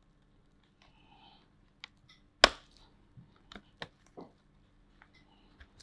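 Sharp clicks and snaps from the plastic bottom case of a laptop being pried open at its seam. One loud snap comes about two and a half seconds in, followed by a few lighter clicks.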